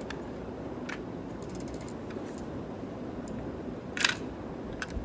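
A few light clicks from a toy tow truck model being handled, with one short, louder rattle about four seconds in.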